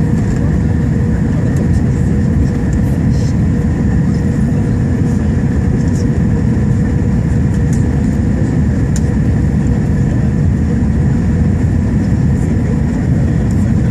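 Steady cabin noise of an Airbus A320 airliner in flight on approach: a constant rumble of engines and airflow, with a few faint steady whining tones above it.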